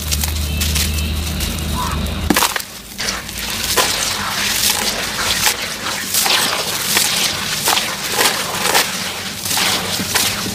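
Lumps of sand-cement being crushed and crumbled by hand in a basin of water: a dense, irregular run of gritty crunches and crackles as the chunks break into crumbs.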